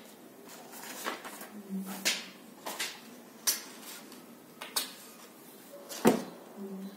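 Paper cutouts handled and pressed onto a board: a series of short rustles and taps, with a firmer thump about six seconds in as a cutout is pressed flat.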